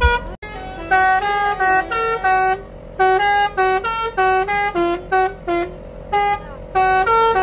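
Basuri V3 telolet horn playing a quick tune of short, separate notes that jump up and down in pitch, over a steady held tone.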